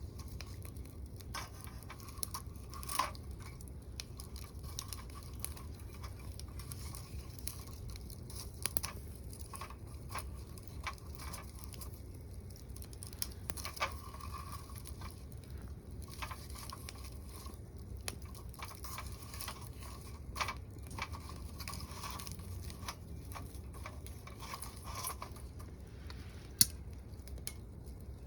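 Wood fire crackling in a small secondary-combustion camping wood stove: scattered snaps and pops over a low steady rumble, with one sharp pop near the end.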